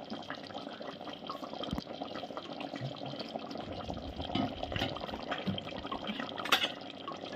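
Thick mutton curry simmering in an aluminium pot: a steady, soft bubbling with scattered small pops and plops as bubbles burst through the thick gravy.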